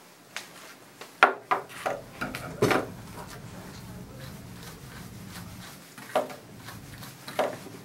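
Steel grooming shears and a slicker brush knocking and clinking against a grooming table as they are set down and picked up. A quick cluster of sharp clicks comes in the first three seconds, then single knocks about six and seven and a half seconds in.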